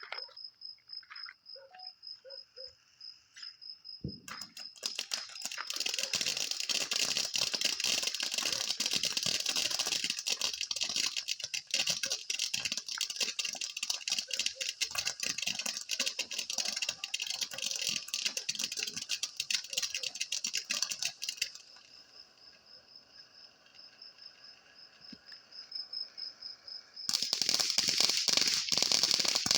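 Fireworks crackling in a dense, rapid stream of tiny pops that starts about four seconds in and stops around twenty-one seconds, then starts again near the end. Crickets chirp steadily in the quieter stretches.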